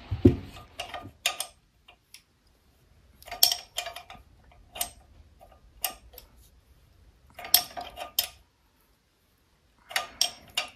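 Light metallic clicks and clinks in small clusters every second or two, with quiet between.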